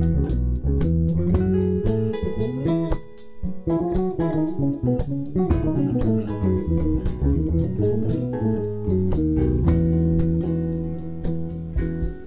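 Live band playing an instrumental passage: guitars and bass guitar over a drum kit keeping a steady beat.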